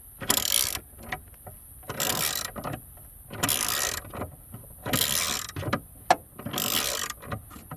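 Socket ratchet wrench clicking in repeated strokes, a burst of ratcheting about every second and a half, with a sharp metallic click about six seconds in.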